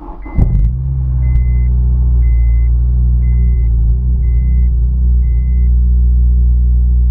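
Honda S2000 four-cylinder engine started: a brief crank, catching within the first second, then settling into a steady idle, run to check for misfires after new spark plugs. A short electronic beep sounds about once a second, six times, over the first six seconds.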